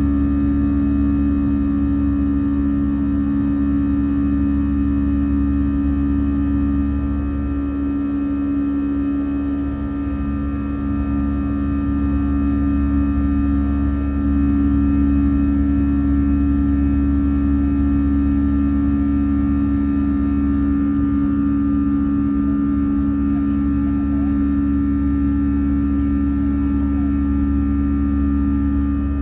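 Airbus A321 jet engines running steadily during the climb after takeoff, heard inside the cabin: a loud, even drone with a strong low hum over a steady roar.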